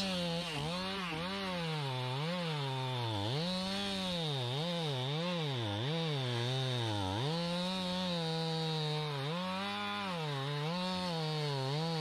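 Chainsaw cutting into a tree fern trunk. Its engine pitch sags under load and recovers about once a second as the chain bites and eases.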